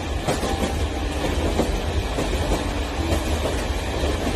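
Electric toy train pulling a long line of container wagons along its track, its wheels and cars giving a steady rattling clatter.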